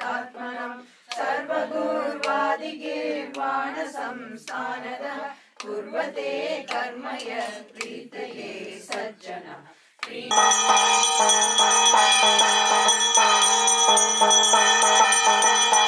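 A man chanting verses of worship for about ten seconds, then a puja hand bell rung continuously with rapid strokes, its bright metallic ringing filling the rest, as incense is offered.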